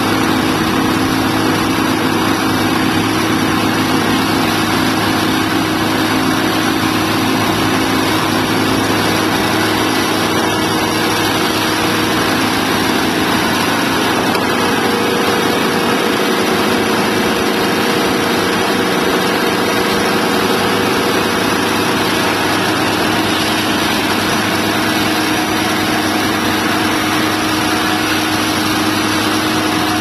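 Portable sawmill's engine running steadily under load as the saw head cuts through a log, throwing sawdust.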